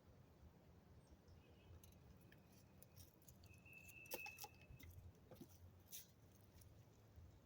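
Near silence outdoors, with a few faint clicks and a brief, thin high-pitched tone about halfway through.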